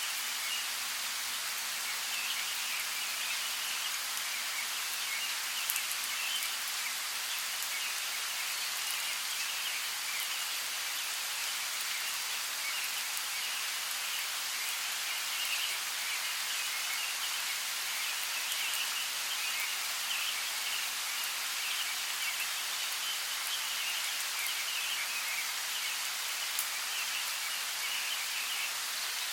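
Steady rain: an even hiss with occasional sharper drop ticks.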